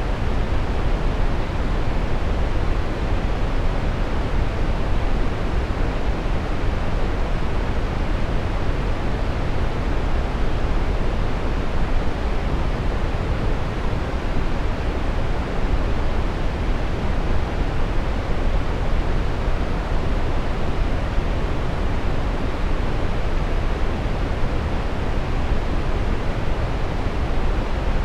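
Steady brown noise: an even, unchanging rushing hiss weighted toward the low end, with little treble.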